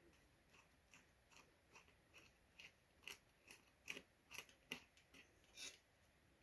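Faint, regular clicking, a little over two clicks a second and loudest a bit past the middle, from the CPU air cooler's mounting screws and bracket being worked down onto the motherboard.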